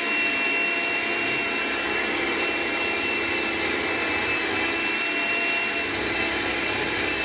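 Electric hand mixer running steadily, its beaters working a melted chocolate, butter and sugar mixture in a glass bowl; an even motor whine with a high steady tone.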